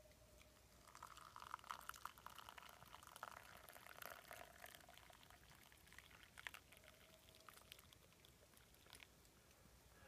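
Coffee poured from a glass French press into a wooden kuksa cup: a faint trickle that starts about a second in and tapers off after about six seconds, with a few small clicks.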